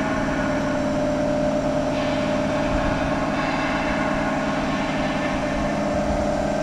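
Steady machinery hum with several constant tones and no strikes or clicks.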